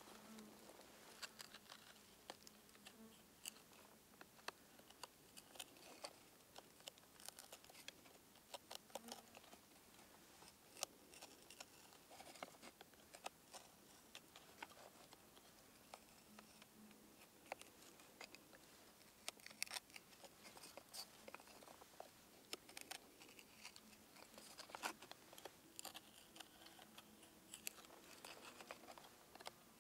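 Knife point carving and reaming the rivet holes in a thin wooden cleaver handle scale: faint, irregular small scrapes and clicks of steel on wood.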